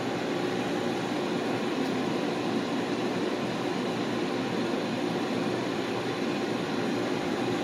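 Steady whirring of ventilation fans, an even rushing noise with a faint constant hum under it.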